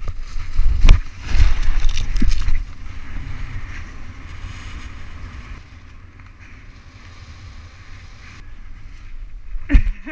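Wind buffeting a helmet-mounted camera during a short BASE jump from a sandstone arch. Loud rushing air with sharp snaps and fabric clatter in the first two seconds, which is the parachute deploying. Then a quieter, steady rush of air under the open canopy, and a sharp click near the end.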